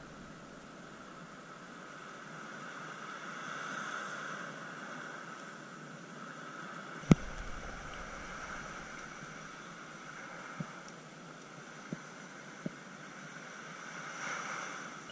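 Steady wash of surf and wind on the beach, with one sharp knock about seven seconds in and a few faint clicks later.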